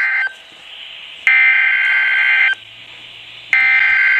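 Emergency Alert System SAME digital data bursts: a harsh buzzing screech of data tones, repeated three times at even intervals, about a second and a quarter each. These are the coded bursts that frame an EAS alert. The first burst cuts off just after the start, the second runs fully, and the third begins about three and a half seconds in.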